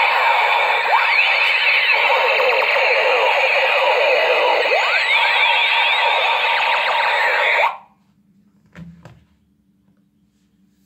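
Toy gun's electronic sound effect played through its small speaker: a harsh buzzing with many overlapping rising and falling sweeps. It cuts off suddenly near the end, and two short clicks follow.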